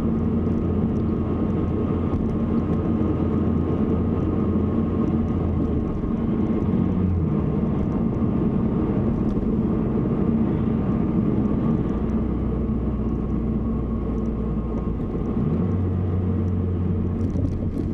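Steady engine and road noise of a 2007 Mazdaspeed3 with a 2.3-litre turbo four, being driven and heard from inside the cabin. The low hum drops about six seconds in and comes back up near the end as the engine speed changes.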